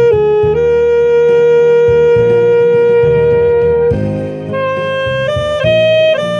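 Yanagisawa W02 saxophone with a Vandoren Java reed playing a slow ballad melody. A short note leads into one long held note of about three seconds, then a softer run of shorter notes climbs step by step.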